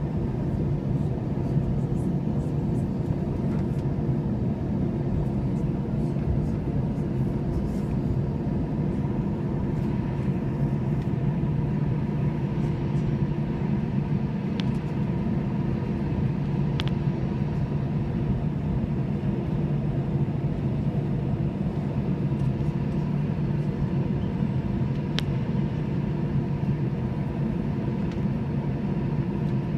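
Airbus A321 cabin noise: the jet engines and airflow make a steady, even rumble with a constant hum in it, heard from inside the cabin. A few short sharp clicks come through in the middle and near the end.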